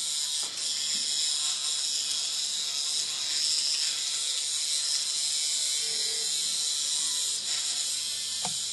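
Small Hexbug vibrating toy buzzing steadily as it skitters across a tiled floor, with a brief knock near the end.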